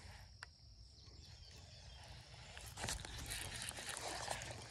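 Quiet outdoor background with a faint click near the start, then soft crackling and rustling close to the microphone from about three seconds in, as the camera is handled and rubbed against an arm.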